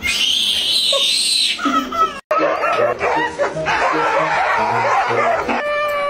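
A baby's high squealing laugh. After a short break, a pack of dogs whining and yelping over one another, with laughter mixed in. Near the end a husky starts a long, steady howl.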